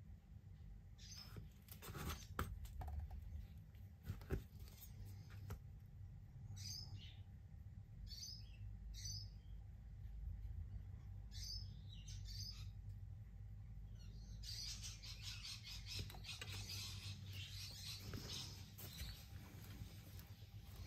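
Small birds chirping faintly in the background, with short, high chirps scattered through the first two-thirds. There are a few light knocks around two and four seconds in, and a soft rustling hiss later on, over a steady low hum.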